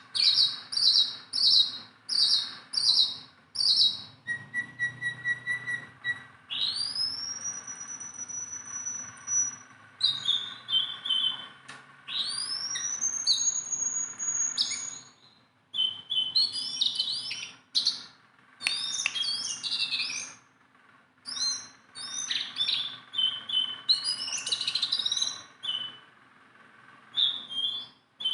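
Jongkangan bird singing: a quick run of repeated high notes, then two long whistles that rise and hold level, followed by varied chirps and trills.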